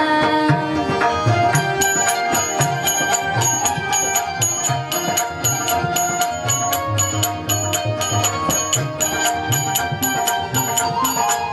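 Instrumental interlude of a devotional bhajan: tabla plays a steady rhythm under a sustained melodic accompaniment, and a high clink joins about a second and a half in, repeating about twice a second.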